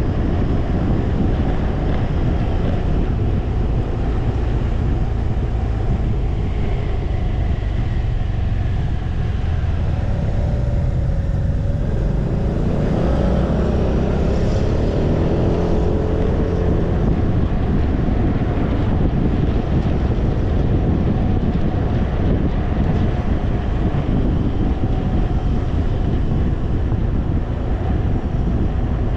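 Wind rushing over a windscreen-mounted camera's microphone on a moving BMW C 400 X scooter, over the steady drone of its single-cylinder engine. From about ten seconds in, a pitched tone wavers up and down for several seconds.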